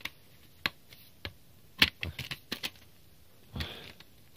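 Plastic clicks and taps from a slim external DVD drive enclosure being handled and pressed together, several sharp clicks with a quick cluster about two seconds in. A short rustle follows about three and a half seconds in.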